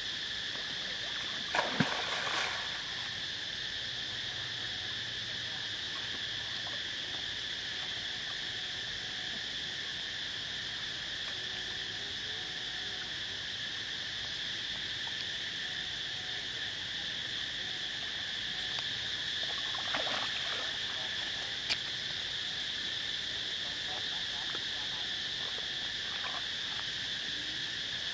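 Steady, high insect drone in two pitches, with water splashing from macaques swimming in a pond about two seconds in and again around twenty seconds in.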